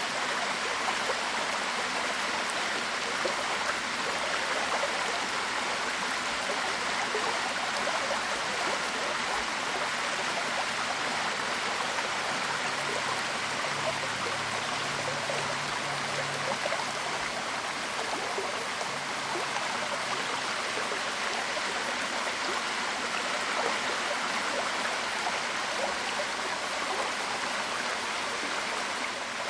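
Waterfall: water falling and rushing steadily, an even hiss without pauses.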